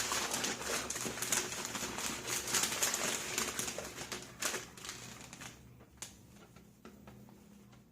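Whisk clicking and scraping rapidly against a bowl, mixing flour into cake batter; the fast clicking stops about five and a half seconds in, leaving a few single taps.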